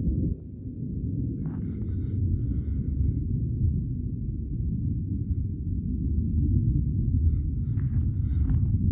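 Rocket Lab Electron rocket's first stage, with its nine Rutherford engines, heard as a steady, distant low rumble while it climbs away.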